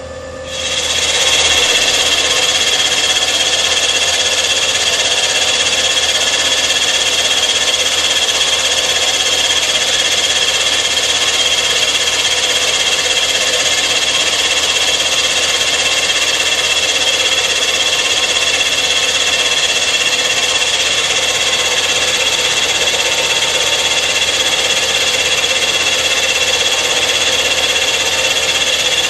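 A Rottler F90Y CNC machining center's end mill milling the cast-iron fire deck of a Caterpillar 3500 engine block. It makes a loud, steady cutting noise with a high whine that starts about half a second in and holds.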